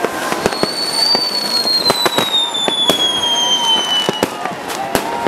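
New Year's Eve fireworks and firecrackers going off across a city: a steady run of sharp bangs and cracks. A firework whistle starts about half a second in and lasts about four seconds, slowly falling in pitch.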